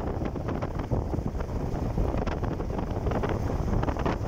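Wind rushing and buffeting the microphone on a moving motorcycle: a dense, steady low rumble with short gusty flutters, and no clear engine note above it.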